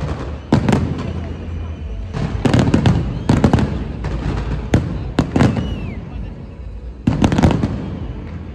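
Fireworks exploding: about six sharp bangs a second or two apart, each trailing off in a short rumble, over a steady low background rumble.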